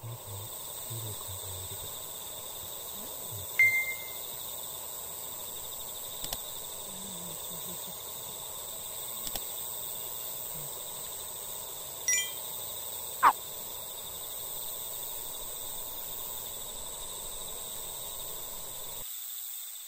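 Quiet outdoor evening ambience: a steady low hiss with a faint high tone held throughout, broken by a few short chirps and thin clicks. The loudest is a short ping about three and a half seconds in, and there are more chirps around twelve and thirteen seconds.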